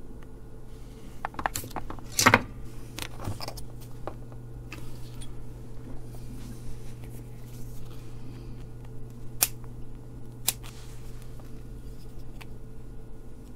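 Scattered sharp clicks and snips of small hand tools working on a through-hole circuit board, the loudest about two seconds in, over a steady low hum.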